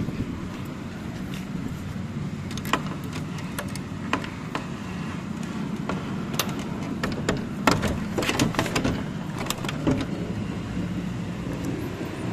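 Wooden door being handled and shut, its metal latch working: a scatter of sharp clicks and knocks, thickest toward the middle, over a steady low rumble.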